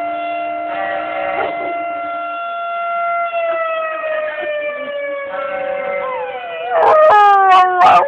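Emergency warning siren sounding a long steady tone that slowly falls in pitch after about three seconds. A Jack Russell terrier howls along with it, loudest near the end.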